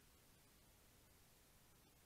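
Near silence: a faint steady hiss of recording noise, with a few faint ticks.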